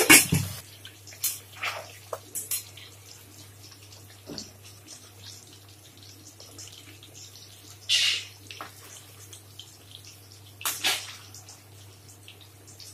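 Rohu fish pieces shallow-frying in hot oil in a steel kadai: a quiet, steady sizzle with small crackles. A metal spatula scrapes and knocks against the pan at the start, and there are louder bursts of sizzle or scraping about eight and eleven seconds in, over a low steady hum.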